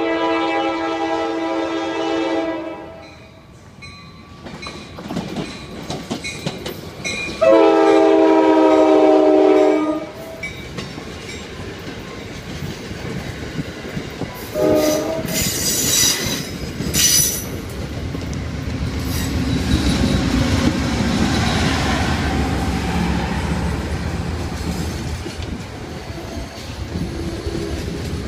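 Amtrak train's air horn sounding two long blasts and a short one, the long, long, short pattern of a grade-crossing signal. A few sharp high wheel noises follow, then the steady rolling rumble of the passenger cars going by.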